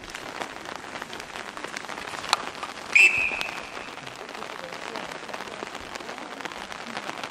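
Steady rain falling, with individual drops ticking close to the microphone. About three seconds in, a short high whistle-like tone stands out as the loudest sound, just after a single sharp click.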